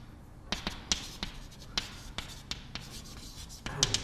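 Chalk writing on a chalkboard: a string of short, sharp taps and scrapes, about a dozen strokes coming irregularly as words are written.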